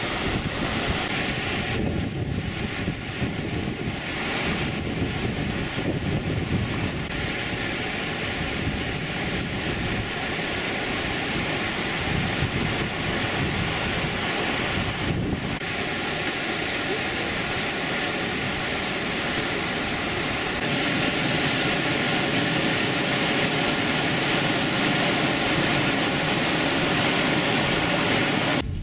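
A steady rushing, hissing noise, as of wind or rushing water, that gets a little louder about two-thirds of the way through.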